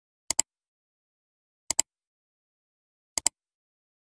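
Three mouse-click sound effects, each a quick double click, about a second and a half apart, timed to a cursor pressing like and subscribe buttons.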